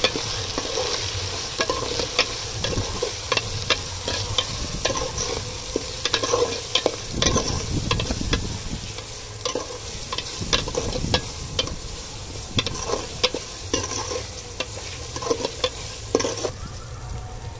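A metal spatula stirring and scraping onion-tomato masala with whole spices as it fries in hot oil in a metal pot: steady sizzling with frequent clinks and scrapes of the spatula against the pot. The sizzle thins out near the end as the masala fries down.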